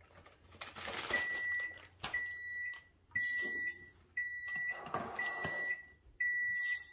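Electronic kitchen appliance alarm beeping: six steady, high-pitched beeps about once a second, each lasting about two-thirds of a second.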